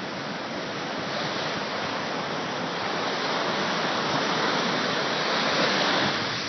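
Ocean surf breaking and washing in: a steady rushing hiss that swells slowly to its loudest about six seconds in, then eases.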